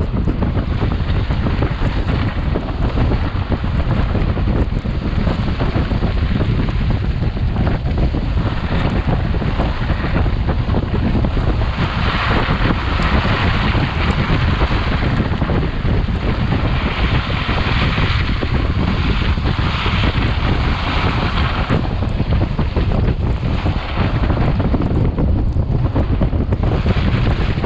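Wind buffeting a camera microphone mounted at a Jeep's wheel, over a steady low rumble of the tyres driving on a snowy off-road trail. The hiss turns harsher and brighter for several seconds in the middle.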